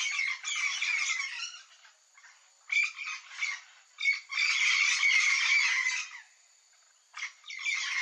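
Yellow-faced parrots giving harsh squawking calls in long runs, broken by two pauses of about a second, with a few short single squawks in the first pause.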